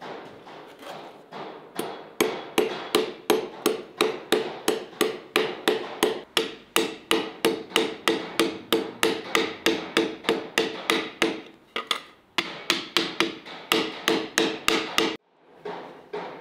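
A steady run of hard, ringing knocks, about three a second, that stops abruptly a little before the end and resumes more softly.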